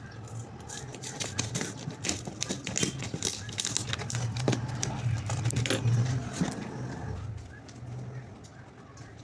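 A cardboard box being opened by hand: a busy run of scraping, tearing and rustling, thickest in the middle and easing off near the end, with a low hum underneath.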